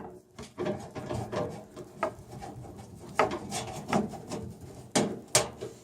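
Irregular scraping and rubbing with light knocks and clicks from handling parts while reassembling a microwave oven's casing and screws.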